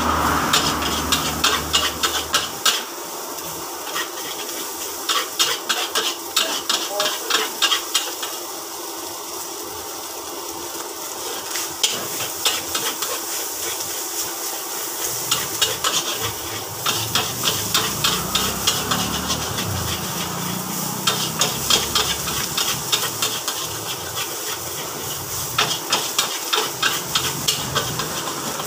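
Fried rice (nasi goreng) stir-frying in a large metal wok: a steady sizzle, broken by runs of quick clanks and scrapes as a metal spatula and ladle strike the wok.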